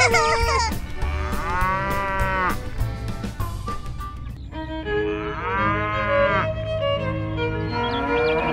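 A cow mooing twice: two long, drawn-out moos, one about a second in and another about five seconds in, over light background music.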